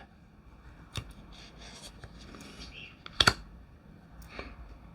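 Glossy tarot cards being handled: soft rustling and sliding of card stock, with a few light clicks, the sharpest about three seconds in.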